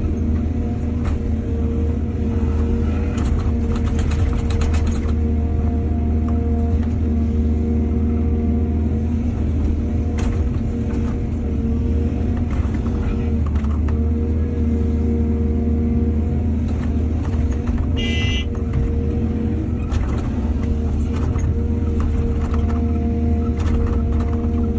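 Excavator diesel engine running steadily under load, with scattered metallic clanks and a brief high squeal about eighteen seconds in.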